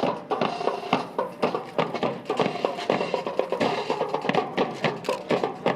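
Drill rifles being handled in a drill display: a rapid run of sharp wooden and metal clacks and knocks, several a second, over music.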